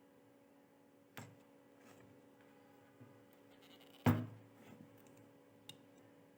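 A few separate knocks and clicks, the loudest about four seconds in, over a faint steady hum.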